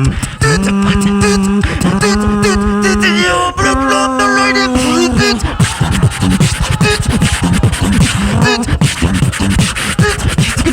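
Two-person beatbox tag team performing: held, stepping sung bass notes over a beat for about the first half, then a dense run of rapid vocal drum hits and clicks.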